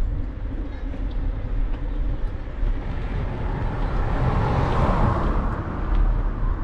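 A car passes close by, its tyre and engine noise swelling to a peak about four to five seconds in and then fading. Under it, a steady low rumble of wind and road noise from the moving bicycle.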